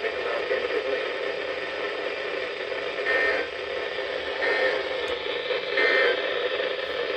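Steady hiss and crackle of radio static from a weather radio receiver on a weak signal, with no clear voice coming through.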